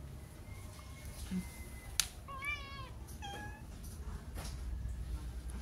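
Domestic cat meowing: one wavering meow about two and a half seconds in, followed quickly by a shorter one. A sharp click comes just before the first meow.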